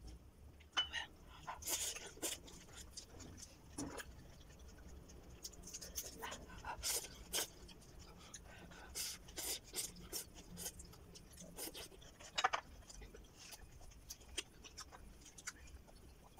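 Close-up chewing of raw vegetables, including bitter gourd and leafy greens: irregular sharp crunches and wet mouth sounds, with louder crunches about two seconds in, around seven seconds and around twelve seconds.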